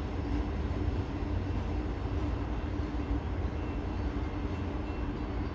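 Freight train cars rolling past, a steady low rumble with wheel and rail noise.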